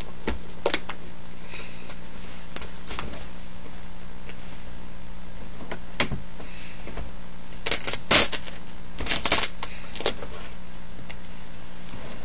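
A cardboard bat box being handled and worked open: scattered sharp taps and clicks, with two short clusters of rattling knocks about two-thirds of the way through.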